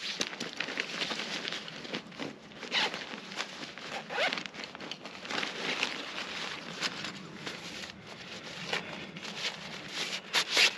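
Zipper pulled and nylon fabric rustling in short, uneven strokes as camping gear is unpacked from its bags.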